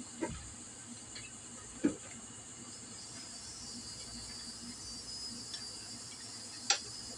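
A few sharp clicks of metal engine parts being handled around a scooter's open cylinder and piston: one shortly after the start, one just under two seconds in, and the loudest near the end. A steady high hiss runs underneath.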